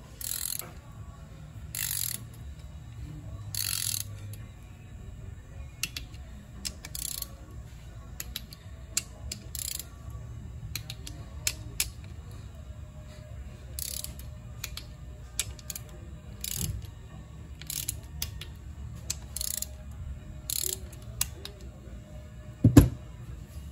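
Hand ratchet clicking in short runs of strokes with single clicks between, as the bolts of the side cover on a Honda ATC250R engine case are run down and snugged. A single loud thump near the end.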